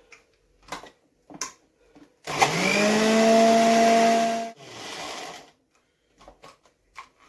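Small electric grinder grinding dried lavender for about two seconds. Its motor spins up with a rising whine, runs steadily, then cuts off, followed by a briefer, quieter run. A few light knocks of handling come before and after.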